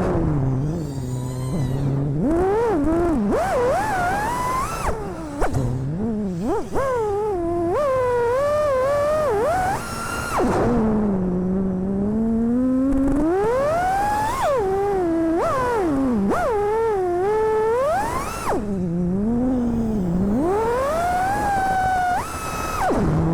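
FPV freestyle quadcopter's brushless motors and propellers whining, the pitch swooping up and down with every throttle change, with short dips where the throttle is cut.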